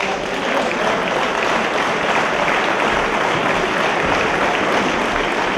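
Audience applauding steadily after the final bell of the fight.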